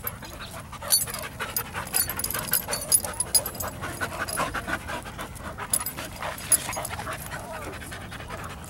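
Dogs panting hard while they play-wrestle, scuffling against each other, with irregular sharp clicks throughout.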